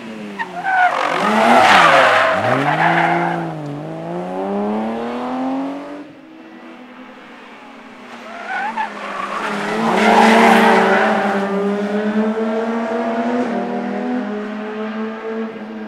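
Rally car running hard through a tarmac corner, its engine note dipping and climbing through lifts and gear changes while the tyres squeal, loudest about two seconds in. The BMW E30 325i's engine is a straight-six. About ten seconds in a second rally car passes hard with tyre squeal, then holds a steady high engine note as it pulls away.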